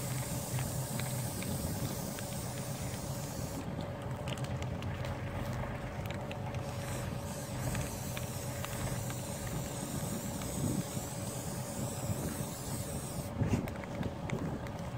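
Rust-Oleum aerosol spray paint can hissing as paint is sprayed onto a steel T-post: one spurt that cuts off suddenly a few seconds in, then a fainter, longer spray later. A steady low drone runs underneath.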